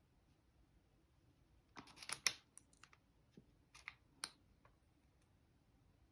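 Nail cutters snipping a 3D-printed plastic toenail in small bites: a quick cluster of sharp clicks about two seconds in, then a few single snips over the next two seconds.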